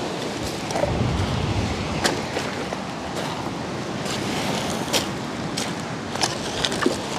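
Surf washing on a pebble beach with wind rumbling on the microphone, broken by a few sharp clicks of stones knocking together.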